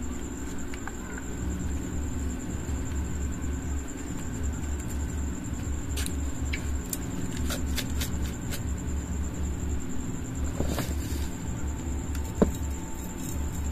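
Steady low mechanical rumble, with a constant faint high whine over it. A few light clicks and taps come about six to nine seconds in, and one sharper click near the end.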